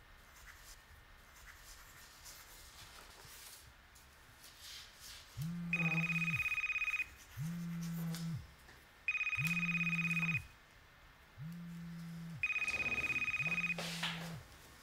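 Faint pen scratching on paper, then a phone ringing: three trilling electronic rings, interleaved with five low buzzes from its vibrate motor. A brief rustle comes near the end as the phone is reached for.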